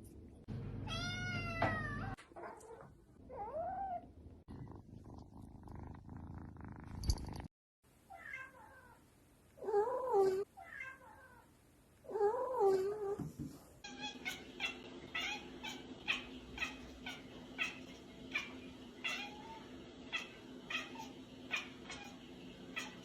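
Domestic cats meowing and caterwauling in a string of short clips cut together: several drawn-out, bending meows, then a run of short, quick calls about two a second.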